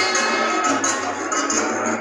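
Live salsa orchestra playing, with a bass line moving underneath and a steady pattern of sharp percussion strikes on top.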